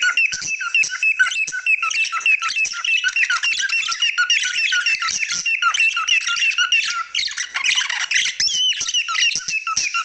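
Pet cockatiels and budgerigars chattering and calling together: a dense, unbroken stream of short chirps and squawks, about three or four calls a second, with warbling chatter layered over them.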